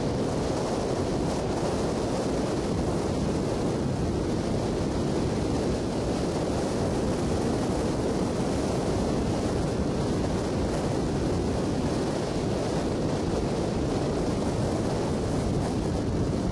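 Steady rushing wind and road noise from a moving motorbike, with wind buffeting the microphone and no break or change in level.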